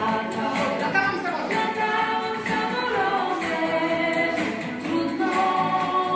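Group of women's voices singing a song together, with little or no instrumental backing.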